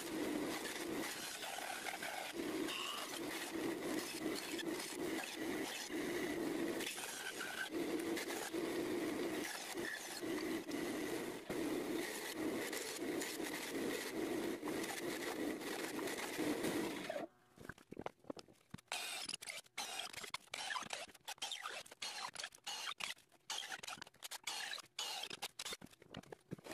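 Bandsaw running steadily while roughing out a block of hard black cherry, its note swelling and easing in pulses. About two-thirds of the way through it gives way to irregular scraping and knocking sounds.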